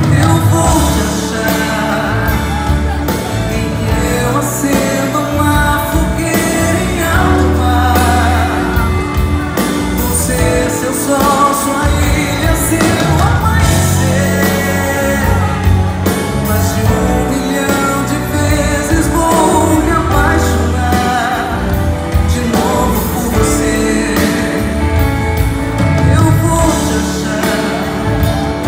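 Live pop band music recorded in a concert hall: bass, guitar and drums with a voice singing over them, continuous throughout.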